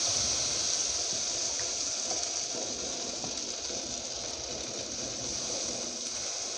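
Thin rava dosa batter sizzling on a hot dosa tawa: a steady hiss that slowly fades as the batter sets.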